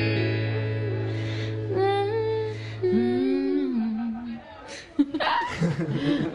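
A woman humming a slow tune with her mouth closed over a steady held low note; the low note stops after about three seconds and the humming ends a second later. Then come a sharp knock, handling noises and a few short low voice sounds.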